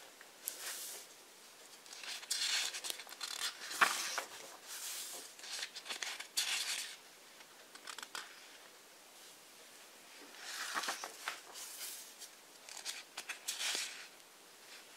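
Pages of a thick hardcover book being turned by hand, with a string of short paper swishes and rustles one after another.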